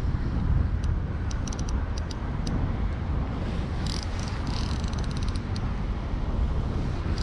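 Wind rumbling on the microphone, with light clicks and then a quick run of rapid ticking from a baitcasting reel being wound in, about four seconds in.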